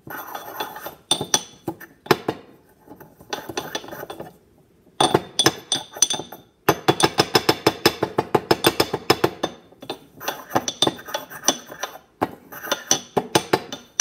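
Ceramic pestle pounding mint leaves in a ceramic mortar: rapid clinking strikes, several a second, in bursts with a few short pauses, the bowl ringing faintly after each hit.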